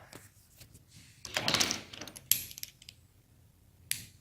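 Small shower door wheel hardware being handled: a short scraping rustle, then two sharp clicks of hard parts knocking together about a second and a half apart.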